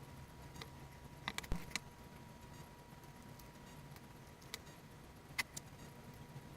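A few light clicks and clinks of small hard parts being handled, in a cluster about a second in and again a couple of times near the end, over a faint steady hum.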